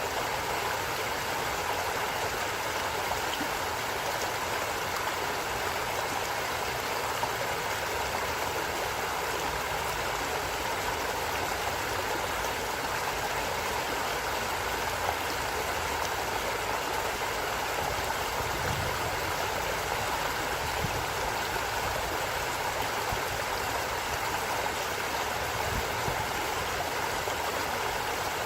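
Stream flowing: a steady, even rush of running water.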